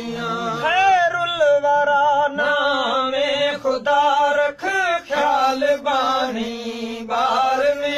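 A male voice singing a long, ornamented wordless line of a Sindhi devotional song, the pitch sliding and bending, over a steady sustained drone underneath.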